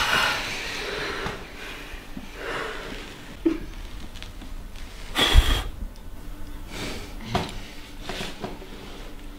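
A woman's soft breathy whispering and breathing, with one louder puff of breath about five seconds in.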